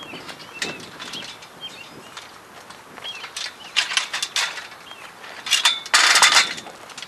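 Tripod legs clicking and clattering as they are handled and spread open, with the loudest clatter about six seconds in. Faint bird chirps in the background.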